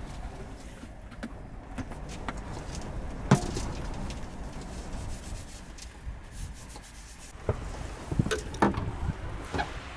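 Rustling and rubbing of a disinfecting wipe handled in the hands, with scattered small clicks and one sharp click about a third of the way in. In the last couple of seconds, a run of louder knocks and clacks as the truck camper's door is opened.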